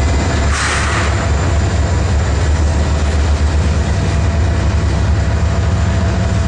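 Canadian Pacific intermodal freight train's cars rolling past, a steady low rumble of wheels on rail, with a short hiss about half a second in.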